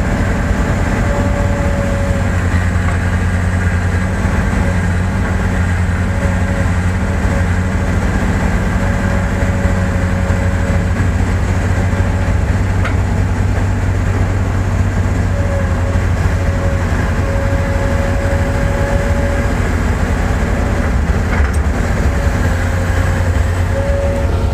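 Heavy diesel machinery engine running steadily under work, with a deep, even drone and a thin whine that comes and goes several times.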